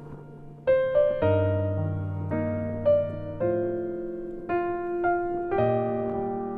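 Background music: a slow piano piece, struck notes and chords ringing and fading over held bass notes.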